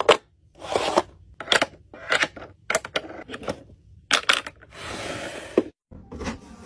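Small plastic toy food pieces clicking and tapping as they are set onto the plastic shelves and door of a miniature toy fridge, in a string of separate sharp clicks. A short rustling noise runs for about a second near the end.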